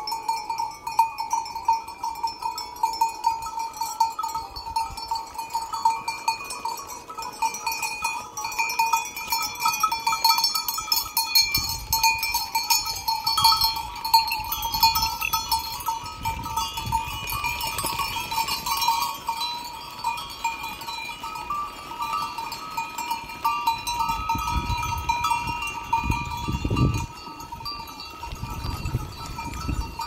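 Many livestock bells on a flock of sheep and goats, jingling and clanking without a break as the animals move. A few low rumbles come in around the middle and near the end.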